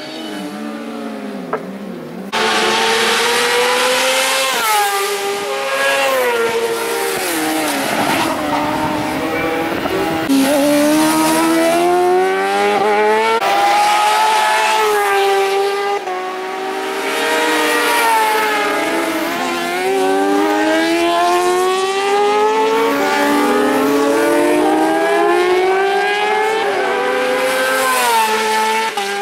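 Racing motorcycle engines at high revs passing one after another, each pitch climbing through the gears and dropping sharply at every upshift. The engines cut in loud about two seconds in.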